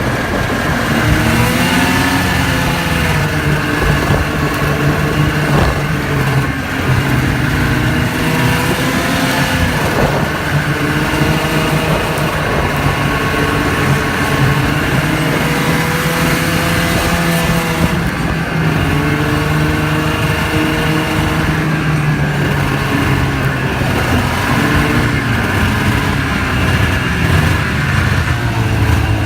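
Vintage snowmobile's two-stroke engine running under way, its pitch rising and falling again and again as the throttle is worked.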